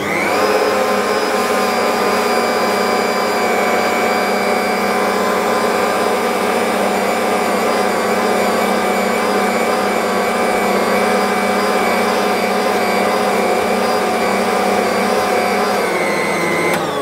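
Ankarsrum stand mixer's motor running at a steady speed with a whine, turning the bowl as it mixes in extra flour to stiffen slightly tacky bread dough; it begins to wind down at the very end.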